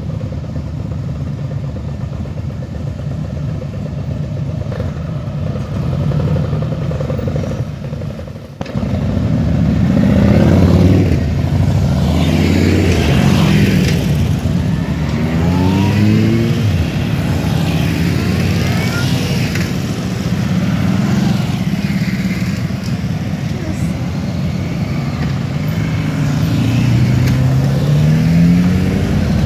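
A group of motorcycles setting off one after another, engines idling in the background and rising in pitch as each bike accelerates away. The sound grows louder about a third of the way in as the bikes begin to pass close by.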